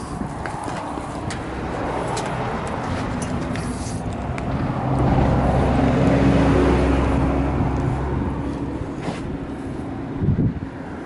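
A car towing a small trailer along the road: steady engine, road and wind noise that swells for about three seconds halfway through. Sharp clicks come through in the first four seconds.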